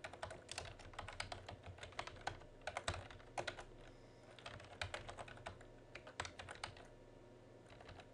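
Computer keyboard typing in quick runs of keystrokes, with a pause of about a second near the middle.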